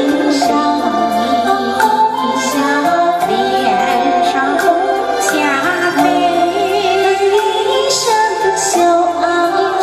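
A woman singing a Chinese love song into a handheld microphone over a karaoke backing track, with cymbal strikes in the accompaniment.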